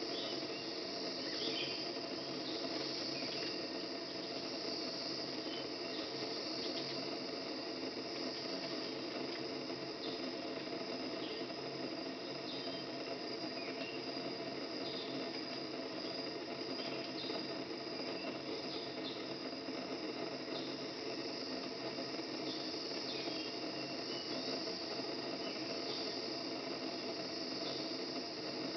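Steady chorus of forest insects, a continuous high shrill drone with a lower steady hum beneath, and short faint chirps every few seconds.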